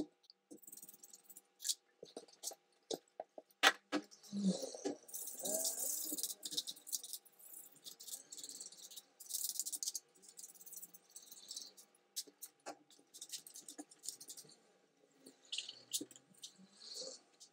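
Hand work on a laptop's plastic and metal parts: scattered clicks and taps, small rattles and stretches of scraping.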